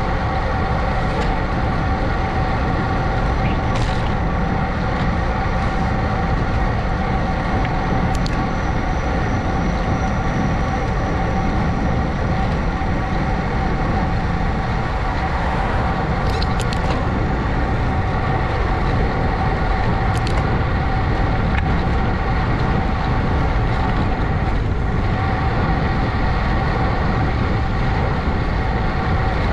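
Steady rumble of wind over the microphone with tyre noise from a bicycle on the move, under a constant hum of several steady tones.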